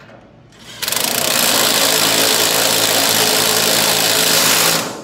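Cordless impact wrench hammering a fastener tight on the front steering linkage (tie rod, drag link, idler arm). It starts about a second in, runs steadily for about four seconds as a rapid hammering buzz, then stops.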